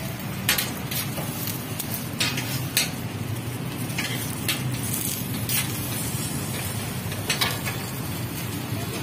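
Metal knife clicking and scraping on a flat iron griddle in irregular strokes as an egg-wrapped shami roll is cut, over a steady low hum.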